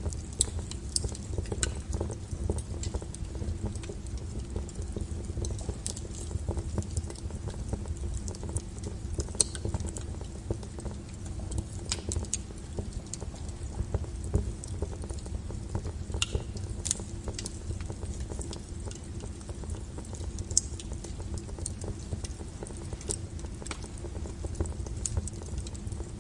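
Wood fire burning: scattered sharp crackles and pops at irregular intervals over a steady low rumble of the flames.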